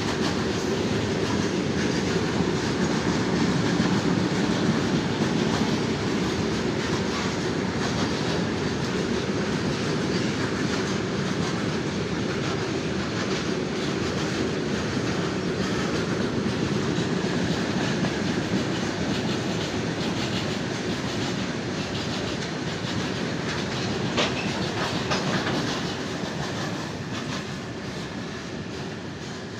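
Goods train wagons rolling past on the track with steady wheel-on-rail noise, which fades over the last few seconds as the train moves away.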